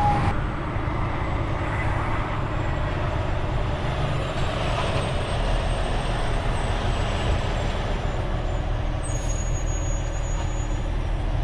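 Semi-truck diesel engine running at low speed, heard from inside the cab, with a faint high whine above it. Near the end comes a sharp hiss of air, typical of the air brakes.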